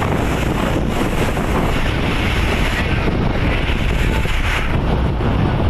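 Wind buffeting the microphone over a boat under way: the Powercity marine engine runs steadily beneath a constant rush of wind and water.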